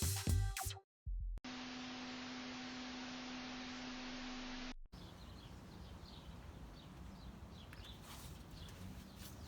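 Music cuts off within the first second, followed by a moment of dead air and then a steady hiss with a low hum lasting about three seconds. After that comes faint outdoor ambience, with short high chirps near the end.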